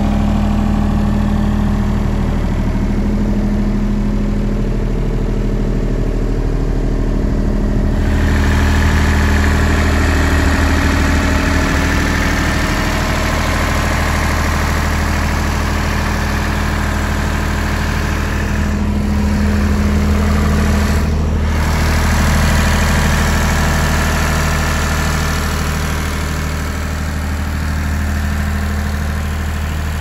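Perkins diesel engine of a Mosa GE 35 PSX super-silenced generator set running steadily at constant speed. About eight seconds in the sound suddenly becomes louder and brighter, then holds steady.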